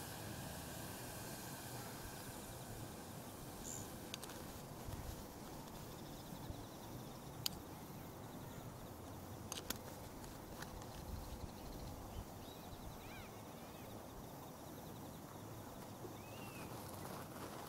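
Quiet outdoor ambience by a wood campfire: a steady low hiss with a handful of sharp, isolated crackles, and a few faint high chirps in the second half.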